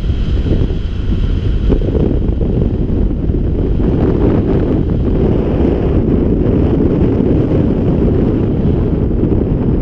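Wind noise from the airflow of paraglider flight rushing over the microphone: a loud, steady rush.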